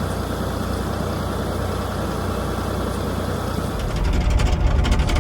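Farm tractor engine running steadily. About four seconds in it grows louder and heavier, with a quick rattling.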